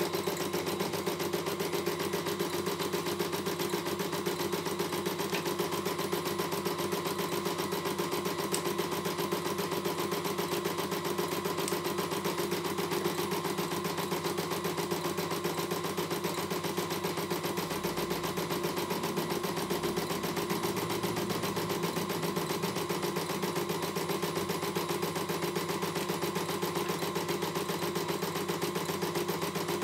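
CNY E900 computerized embroidery machine stitching a design: a fast, even needle rhythm over a steady motor hum.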